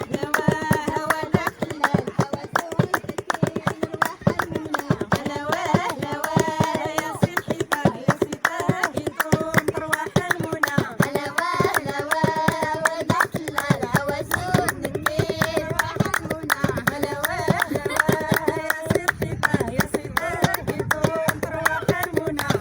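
Music: a voice singing a wavering melody over a fast, steady percussive beat.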